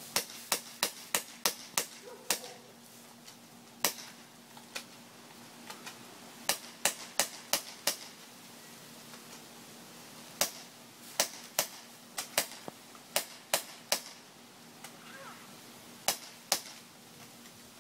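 Airsoft guns firing: sharp snapping shots in quick runs of several, about three a second, with short pauses between the runs.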